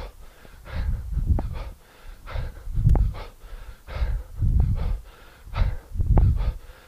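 A man breathing hard and rhythmically, a sharp hissing breath about every 0.7 s, while he does two-handed kettlebell swings, with a low rumble on each swing.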